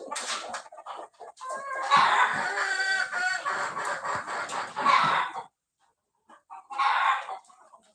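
Flock of Kadaknath chickens clucking, with a long rooster crow from about a second and a half in. After a short silence, another call comes near the end.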